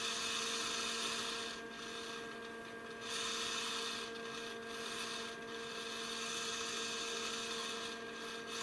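Steady electrical hum from the aircraft SAT/TAS indicator and its test transformer under 115 V AC power, over a faint whir from the temperature needle's servo drive. The whir rises and falls a few times as the servo chases the setting of the potentiometer.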